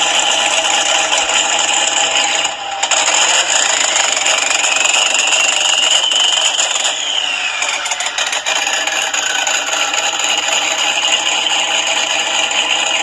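Turbocharged LS V8 in a Holden Commodore running hard on a chassis dyno, loud and harsh, with a short dip in level about two and a half seconds in.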